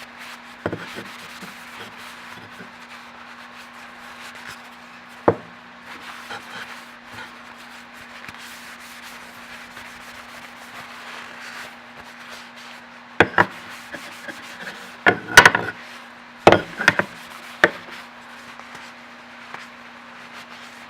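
Cloth rag rubbing olive oil into a wooden push stick, a steady soft scrubbing. A few sharp wooden knocks break in, most of them bunched from about two-thirds of the way through, the loudest near the middle of that bunch.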